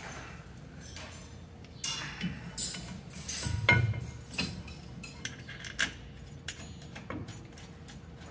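Metal parts clinking and knocking as a Jaguar XK150's Dunlop rear disc-brake caliper and its shims are handled and fitted onto the carrier over the rotor. A run of irregular clinks and light knocks, busiest in the middle.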